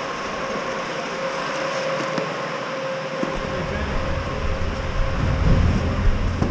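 Steady ice-rink hum with a faint held tone. About three seconds in a low rumble with a few knocks joins it, from goalie gear and skates moving off the ice into the hallway.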